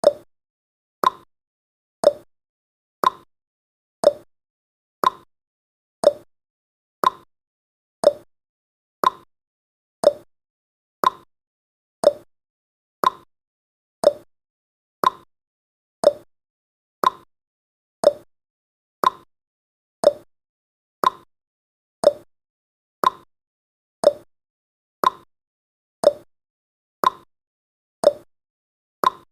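Clock ticking sound effect: a sharp tick-tock click once every second, alternating between a higher and a lower click, marking the seconds of a countdown timer.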